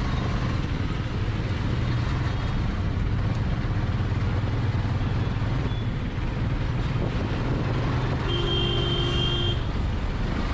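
Steady engine hum and wind noise from a motorcycle riding through city traffic. Near the end a vehicle horn sounds once for about a second.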